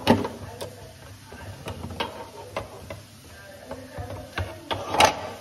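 Eggs set one at a time into a clear plastic egg tray on a refrigerator door shelf, clicking and tapping against the plastic. There are about seven knocks, with the loudest at the start and near the end.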